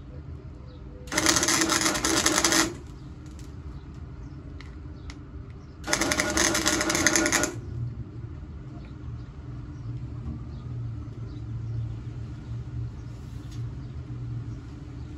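Two tack welds on a sheet-steel car quarter panel: the welding arc crackles in two bursts of about a second and a half each, some four seconds apart, over a low steady hum.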